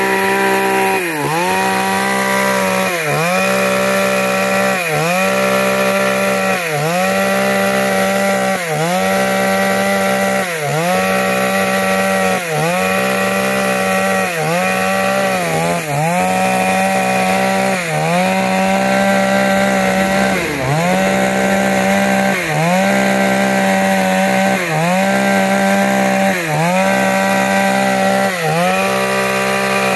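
Two-stroke chainsaw running at full throttle while ripping wood along the grain, its engine pitch dipping briefly and recovering about every two seconds as the chain bites and clears.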